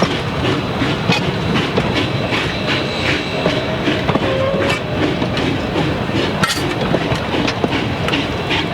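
Narrow-gauge passenger train cars rolling along the track, their wheels clicking and clattering over the rail joints in a steady, irregular stream of clicks.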